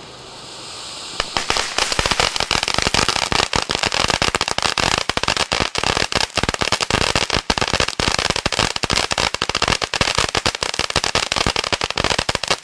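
Winda 'Happy Panda' ground fountain firework hissing as it starts spraying sparks, then from about a second in breaking into dense, rapid crackling that goes on without a break.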